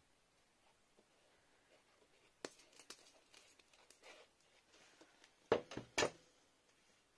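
Faint rustling of craft paper being handled on a work table, with a click about two and a half seconds in and two sharper knocks just before and at six seconds, the loudest moment.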